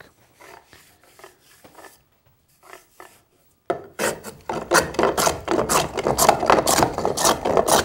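Steel-bodied scrub plane (Lie-Nielsen No. 40½) taking heavy cuts across a wooden board in quick back-and-forth strokes, each a rasping shave. Faint at first, then loud and regular from about four seconds in, about three strokes a second.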